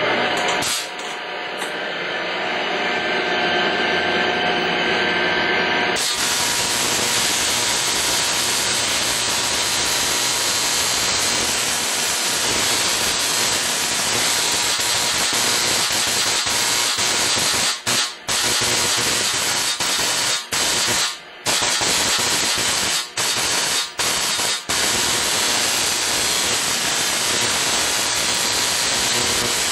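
A 1,000-watt synchronous rotary spark-gap transmitter. Its 3,600 rpm synchronous motor runs up with a steady hum. About six seconds in, the gap starts firing with a loud, continuous hissing rasp, cut off briefly a few times in the second half. The gap is being synced so that it sparks on the peaks of the 60-cycle supply, for the least noise and the best note.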